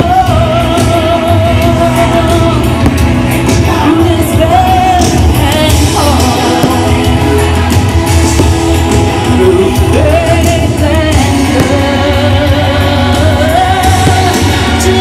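Loud music with singing: a voice holds long, wavering notes over a steady bass line.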